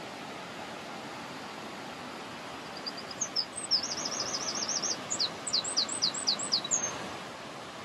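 A songbird sings one phrase, from about three seconds in and lasting about four seconds: a few short chirps, a quick warbling trill, then a run of falling notes ending in a short upward flourish. It sings over a steady rushing noise.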